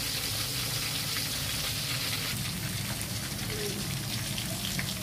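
Pieces of snakehead fish deep-frying in hot oil in a wok, the oil sizzling and crackling steadily.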